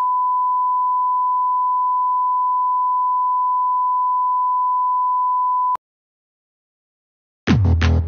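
A steady electronic beep, a single pure tone, held for nearly six seconds and cut off with a click. After a short silence, electronic dance music with a drum beat starts near the end.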